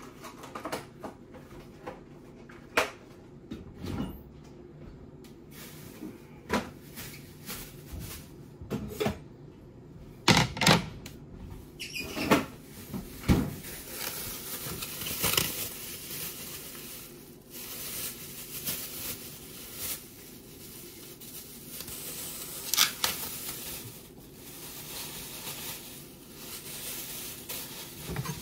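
Kitchen handling noises: a series of separate knocks and clunks, like cupboard doors and utensils, as a cutting board and chef's knife are fetched and set down on a glass-top stove. A little before halfway through, a steadier rustling takes over, with a few more knocks.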